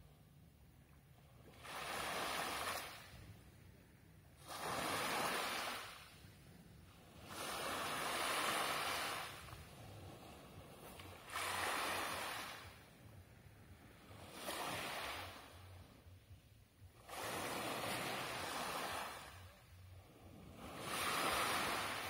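Small sea waves breaking and washing up a pebble beach, one about every three seconds, each surge of noise swelling and falling away.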